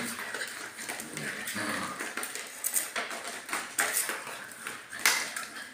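Puppies scuffling with a plastic hula hoop on a tiled floor: scattered clicks and knocks of the hoop and their claws on the tiles, with small puppy yips.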